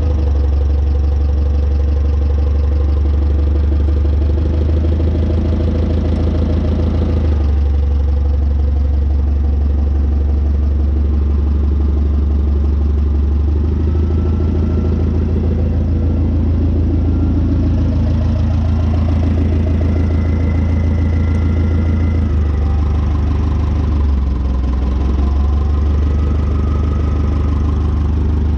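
Clark forklift's Waukesha D155 engine running at idle with a strong, steady low hum; its note shifts a few times, about a quarter of the way in, halfway, and again near the end.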